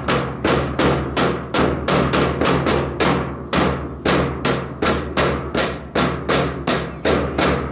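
Marching drum beaten in a steady rhythm, about three to four sharp strokes a second, keeping time for a drill routine, with a steady low hum underneath.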